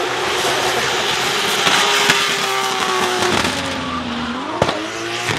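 A drift car's engine held at high revs while the car slides, with its tyres squealing. The revs drop off for about a second near the end, then climb again, with one sharp pop just before they rise.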